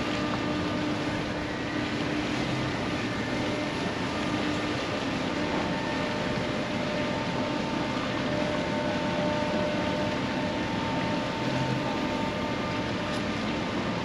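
Bulk carrier Federal Kumano's engine running with a gentle, steady hum over a constant rumble as the ship passes close by, with a few faint steady tones.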